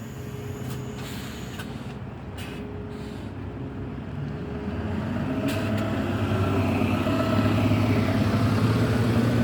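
Motor vehicle engine running with a steady low hum, growing louder from about halfway through, with a few faint clicks early on.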